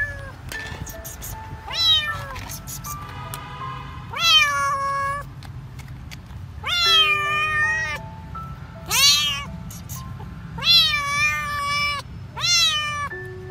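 Young kitten meowing loudly and repeatedly, about seven meows, each rising sharply at the start and some held for about a second, over soft background music.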